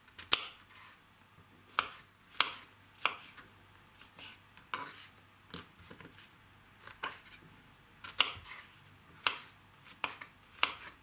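Knife cutting champignon mushrooms into cubes on a wooden cutting board: irregular sharp taps of the blade hitting the board, a little over one a second.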